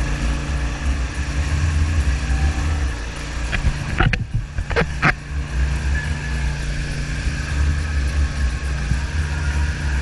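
Wakesurf boat's engine droning steadily under the rush of wake water and wind on the microphone, with a few sharp knocks about four to five seconds in.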